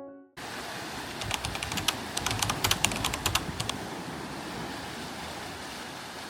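A quick, irregular run of sharp clicks lasting about two and a half seconds over a steady rushing noise.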